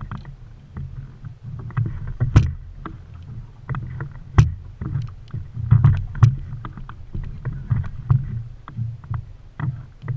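Irregular knocks and bumps on a small fishing boat's deck and hull, a few of them sharp and loud, over a steady low rumble.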